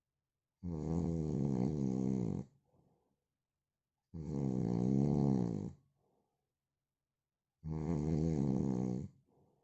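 A man snoring: three long snores about three and a half seconds apart, each lasting under two seconds and wavering in pitch, each trailing off into a faint breath, with silence between.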